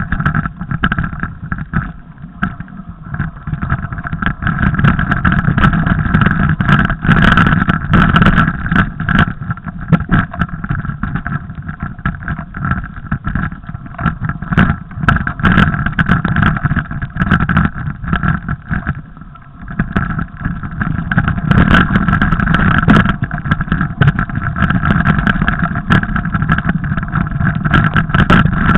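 Mountain bike rattling and jolting over a rough snowy trail, heard through the bike's or rider's camera: a loud, continuous rumble full of clicks and knocks, swelling and dipping as the ground changes.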